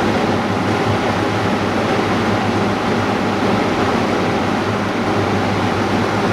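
Steady hum and airy hiss of running workshop machinery: a constant low hum under an even rush of noise that does not change.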